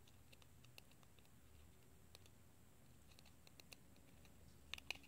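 Near silence broken by faint, scattered clicks of metal tweezers against a small metal shield inside an iPhone 6 as it is pried loose, with a brief cluster of louder clicks near the end.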